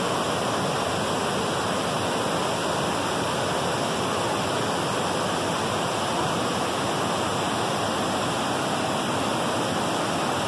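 Whitewater rapids of a river rushing over rock: a steady, unbroken rush of water.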